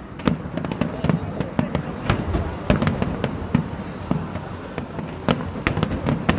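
Aerial fireworks display at full barrage: shells bursting in quick succession, a dense run of sharp bangs, several a second.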